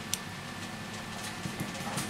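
A sharp click just after the start, then a few faint ticks, from fingers pressing a flex cable and metal shield into an opened smartphone's frame, over a steady background hum.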